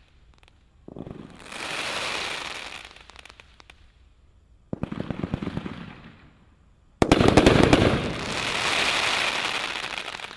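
Brothers 'Sound Doctrine' 500-gram firework cake firing three volleys, each a rapid crackling rattle that fades into a hissing sizzle. The third volley, about seven seconds in, is the loudest.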